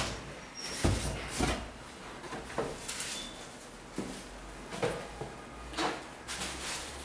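Handling noise from a pair of sneakers being picked up, turned and set down on a cardboard shoebox: a series of soft knocks and rustles at irregular intervals.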